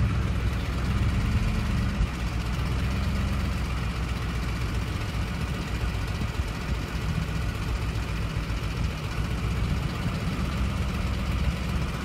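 Ford 5.4-litre three-valve V8 running at light throttle in drive, heard from beside the front wheel well, with a rattle-type knocking from the cam phasers. This is phaser oscillation: once unlocked, the phasers jump around, caused by low and inconsistent oil pressure or a weak phaser return spring.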